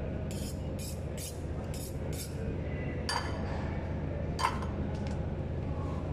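Kitchen knife dicing red onion on a cutting board: about half a dozen quick strokes, then two sharp clinks of hard kitchenware with a short ring, a little over a second apart. A steady low hum runs underneath.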